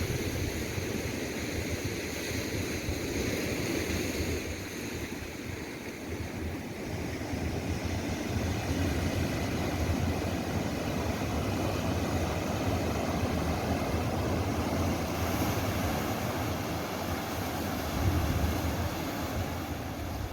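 Steady rushing outdoor noise with gusts of wind buffeting the microphone near the start and again near the end.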